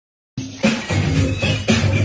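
Music with a steady beat, cutting in suddenly after a split-second of silence at the start.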